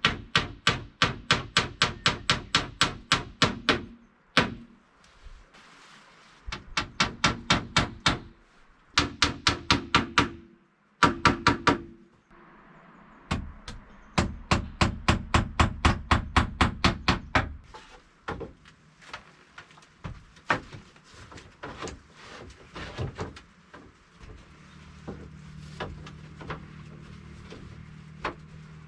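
HiKOKI cordless impact driver driving screws into wood. It runs in several bursts of fast, rattling clicks over a motor hum, with short pauses between. Scattered lighter knocks of wood being handled follow near the end.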